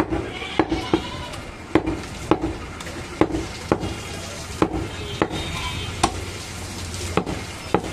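Large butcher's knife chopping goat meat on a round wooden block: about a dozen sharp chops at an uneven pace, with goats bleating in the background.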